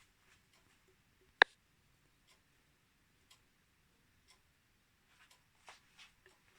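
Faint ticking about once a second in a small quiet room, with one sharp, much louder click about a second and a half in and a few soft rustling clicks near the end.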